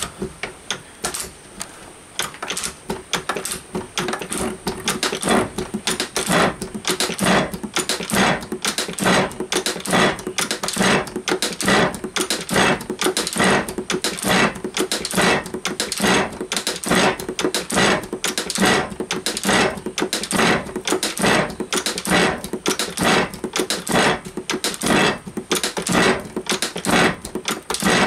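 Metal shaper running, its tool taking a shallow cut along the chain-drilled edge of a plate held in the vise: a steady, regular clatter of about two strokes a second, which gets louder a couple of seconds in.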